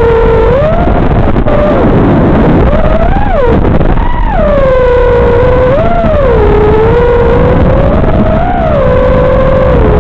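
Brushless motors of a Martian 220 FPV quadcopter whining, the pitch swelling up and down several times with throttle over a steady hiss, picked up by the Runcam Swift 2 camera's built-in microphone.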